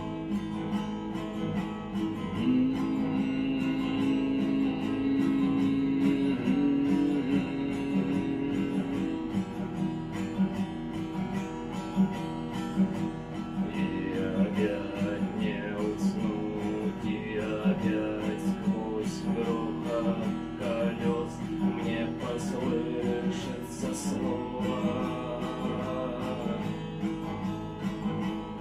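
Acoustic guitar strummed in a steady rhythmic pattern, with the percussive muted "стук" (knock) stroke used in the strum.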